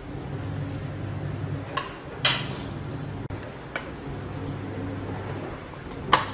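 Metal ladle stirring soup in a large aluminium pot, clanking sharply against the pot four times, loudest about two seconds in and near the end, over a steady low hum.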